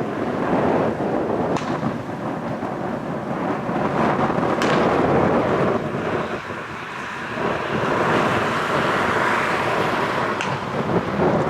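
Strong gusty wind buffeting the microphone, a loud continuous rumble that eases briefly about halfway through, with a few faint clicks.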